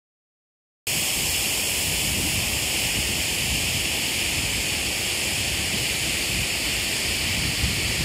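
Steady rush of flowing water from a shallow river running over riffles and a waterfall. It starts abruptly about a second in.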